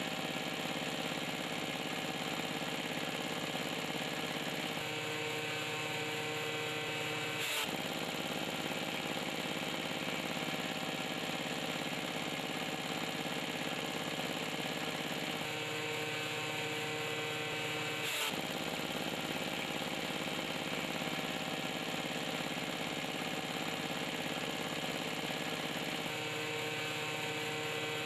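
Power tiller engine running steadily while driving a chaff cutter that chops green fodder grass, a dense mechanical hum whose lower tones shift slightly every few seconds.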